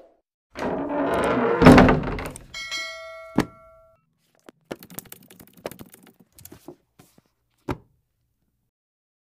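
Intro sound effects: a loud noisy hit lasting about two seconds, then a ringing bell-like chime ending in a sharp click, then a scatter of light clicks, one sharper near the end.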